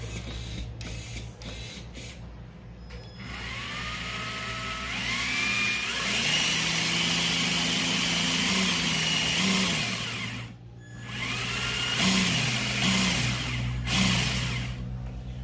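A Traxxas TRX-4's Titan 550 brushed motor and drivetrain whirring under throttle after a few clicks. The pitch rises as it spins up, holds steady, stops for a moment about ten seconds in, then spins up again briefly. It runs smooth, with nothing rough in it, after the crawler has been through mud and deep water.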